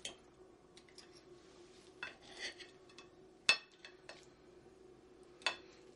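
Knife and fork clinking and scraping on a plate while cutting through a breaded chicken schnitzel: a few sharp clinks, the loudest about three and a half seconds in.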